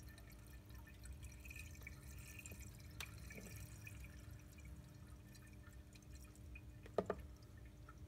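Engine oil flush additive pouring in a thin, faint trickle from a plastic bottle into an engine's oil filler neck. A brief click about three seconds in and a short knock near the end.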